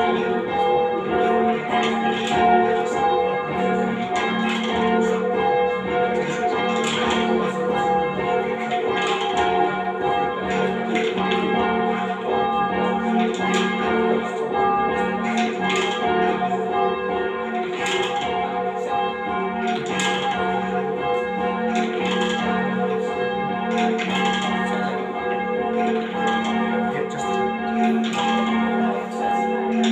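Church bells of a ring of eight (tenor 13 cwt in F#) being rung full circle and rung down, one stroke after another in a continuous, even succession with the notes ringing on.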